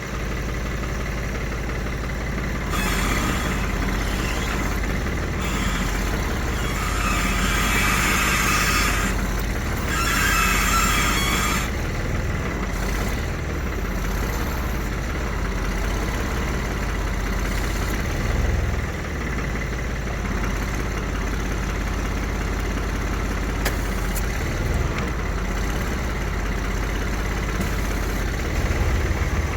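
Tractor engine running steadily, driving a PTO stump grinder. About 3 to 12 seconds in, three stretches of louder hissing, whirring noise rise over the engine.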